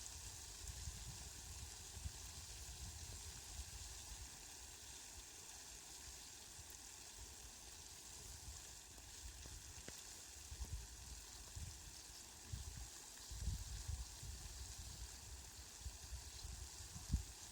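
Steady hiss of falling rain, with irregular low rumbles now and then.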